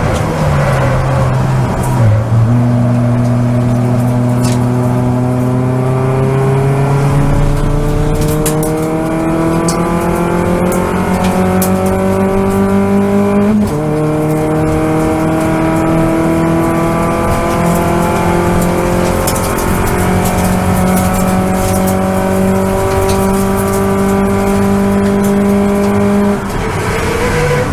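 Toyota Vios race car's four-cylinder engine heard from inside the cabin at full throttle, its pitch rising steadily through a gear, dropping sharply at an upshift about halfway through, then climbing again. Near the end the engine note breaks off and changes as the car slows for the next corner.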